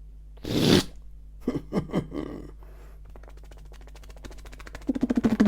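Vocal sound-effect imitation made by mouth: a short breathy hiss about half a second in, a few quick clicks, then a buzzing rattle of rapid pulses that starts near the end.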